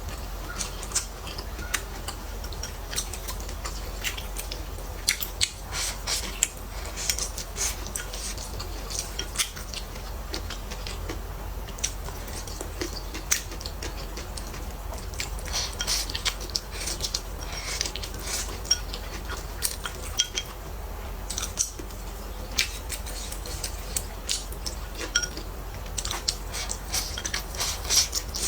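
Close-up eating sounds: chopsticks or a spoon clicking and scraping against bowls at irregular intervals, with chewing.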